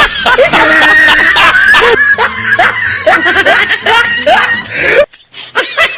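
A person laughing in short, repeated snickering bursts, with sharp clicks between them.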